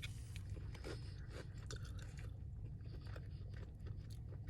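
Close-miked biting and chewing of a Popeyes spicy fried chicken breast, the crispy breading crackling in many short crunches, over a steady low hum.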